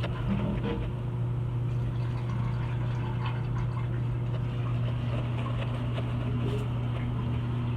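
A steady low mechanical hum with scattered light clicks and knocks over it.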